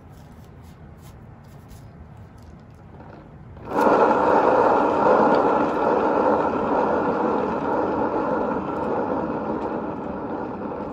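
Small electric motor of a paint-pouring spinner, switched on suddenly about four seconds in and running steadily with a hum of several even tones over a rushing noise. The sound eases slightly and stops at the end.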